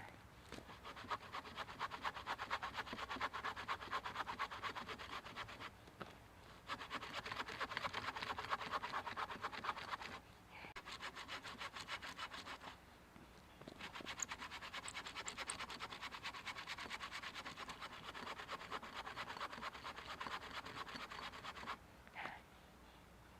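A large 30-inch hand saw cutting through a thick log, its teeth rasping through the wood in long runs of strokes. There are three short pauses, about 6, 10 and 13 seconds in, and the sawing stops shortly before the end.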